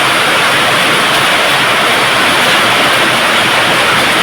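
Steady, loud rushing hiss with no changes.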